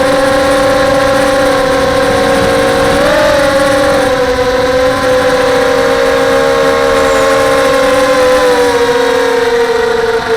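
Brushless motors of an FPV quadcopter (SunnySky 2204 2300KV on 5x3 props) whining at a steady pitch, rising briefly about three seconds in and sagging slightly near the end as the throttle changes.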